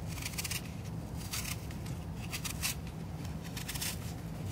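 Apple skin being shaved off by the straight blade of a Tupperware Twistable peeler: a light rasping scrape in short strokes at uneven intervals.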